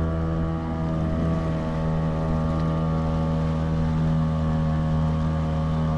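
A motor running steadily at a constant speed, a loud even hum with no change in pitch.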